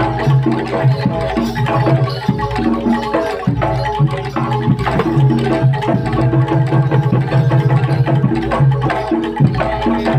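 Kuda lumping (jaranan) gamelan music: hand-drum strokes over repeating notes from tuned gongs and metallophones, playing continuously.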